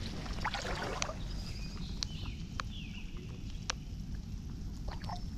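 Lake water splashing and sloshing as a rainbow trout is lowered by hand into the shallows and released, with a splashy patch about a second in. Scattered sharp ticks ride over a steady low rumble.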